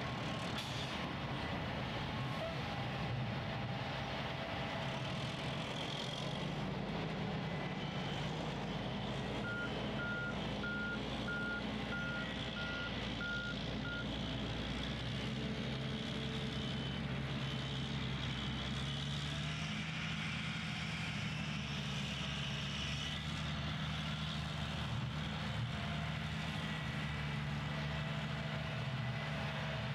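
Diesel engines of a tracked bulldozer and a smooth-drum roller running steadily as they work the dirt, with a backup alarm beeping about one and a half times a second for several seconds about ten seconds in.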